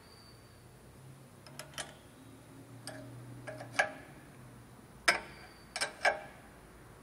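Sharp metallic clicks and clinks of an open-end wrench against a nut and the steel blade plate of a vegetable dicing machine during assembly. There are about eight separate clicks, the loudest ones in the second half.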